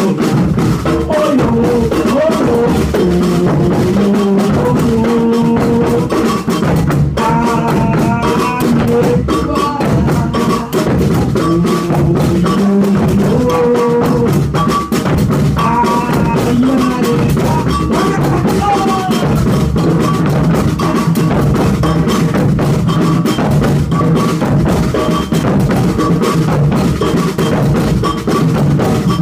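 Afoxé music from a Brazilian percussion ensemble: drums, including a bass drum and sharp rim or snare strokes, keep a steady beat while a melody wavers above them.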